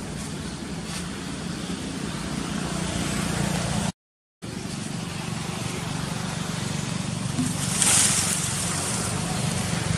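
Steady low motor hum, like a vehicle engine running, under even outdoor background noise. The sound cuts out completely for about half a second midway, and a brief louder hiss comes about eight seconds in.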